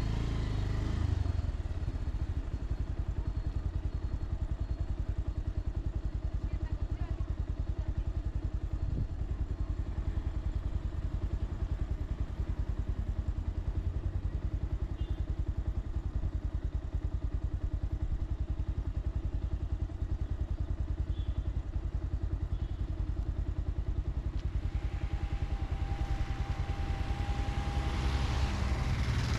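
Motorcycle engine running steadily while riding, its firing pulses continuous. Near the end a rushing noise builds and a faint steady tone sounds for a few seconds.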